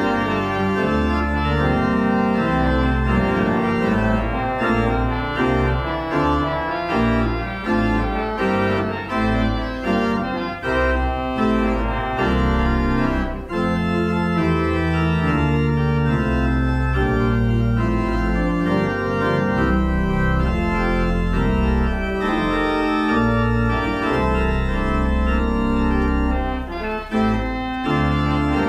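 Church organ playing a postlude after the dismissal: sustained chords over deep bass pedal notes, the harmony changing every second or so.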